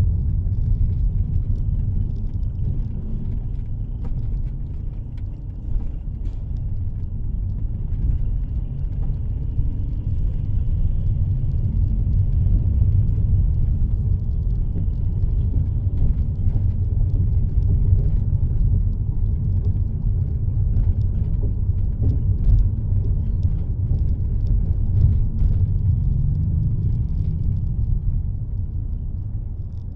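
Low, steady rumble of a car driving, heard from inside the cabin: engine and road noise, with a few faint clicks.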